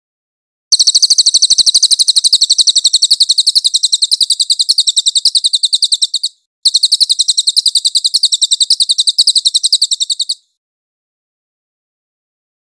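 Crested jay (cililin) singing two long trills of rapid, evenly repeated high notes, the first lasting about five and a half seconds and the second about four, with a brief break between them.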